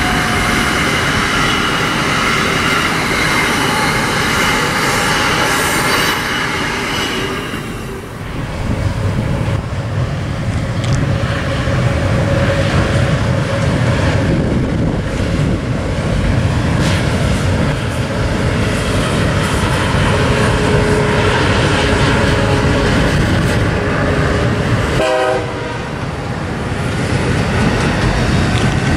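Amtrak Acela Express high-speed electric trains passing: a horn chord falls slightly in pitch as it fades over the first several seconds, then a steady low rumble of wheels on rail as a second Acela crosses a bridge, with a brief tonal blast about 25 seconds in.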